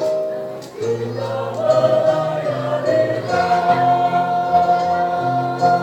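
Church choir singing a hymn in parts, with a short breath between phrases about a second in, then a long held chord from about halfway on.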